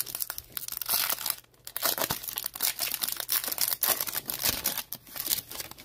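Foil wrapper of a 2021 Topps Series 1 baseball card pack being torn open and crinkled by hand: a quick run of crackles and rustles.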